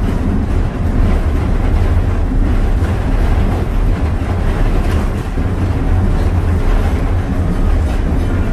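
Steam-hauled passenger train running along the track, heard while riding aboard: a steady, heavy low rumble with a constant rattle over it.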